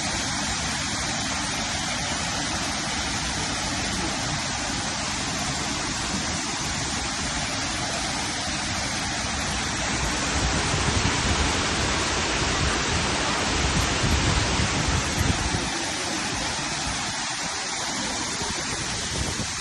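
Golling waterfall's falling water: a steady, dense rush of noise, with a deeper rumble swelling in the middle.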